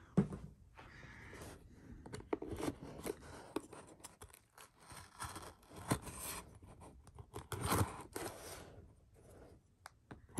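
A shipping package being opened by hand: irregular scraping, cutting and tearing sounds of tape and packaging, with scattered sharp clicks and handling knocks.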